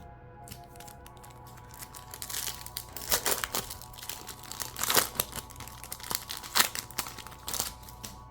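Foil wrapper of a Pokémon mini booster pack crinkling and tearing as it is opened. The crackling starts about two seconds in, with its sharpest crackles near the middle and the end.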